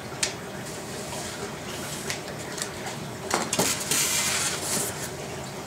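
Clatter of unpacking a styrofoam shipping cooler: scattered light clicks and knocks, a cluster of knocks a little after three seconds, then about a second of packing material crinkling.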